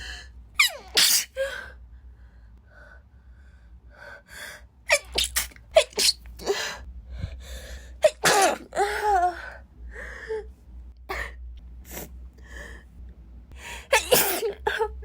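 A woman sneezing repeatedly in a sneezing fit, with sharp catching gasps before the sneezes. Loud sneezes come about a second in, in a cluster around the middle, and near the end, with quieter breaths between them.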